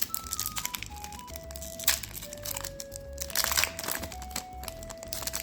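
Foil booster-pack wrapper crinkling and being torn open, with the heaviest crackling a little past halfway, over a simple one-note-at-a-time background melody.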